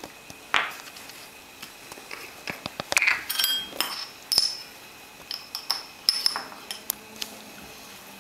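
Metal teaspoon clinking and scraping against a small glass jar while scooping out sodium acetate powder: a string of irregular sharp clinks, some with a short high ring.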